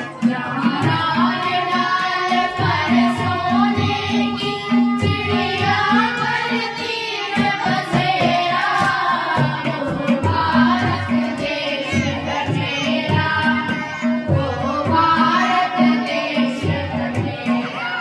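A group of children singing a Hindi patriotic song, accompanied by a tabla keeping a steady beat and a harmonium.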